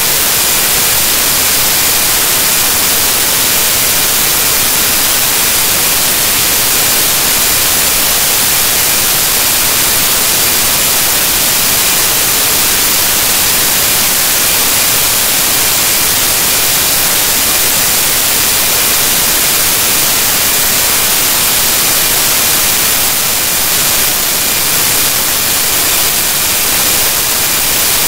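Loud, steady static hiss, brightest in the treble and without any change: corrupted digital audio.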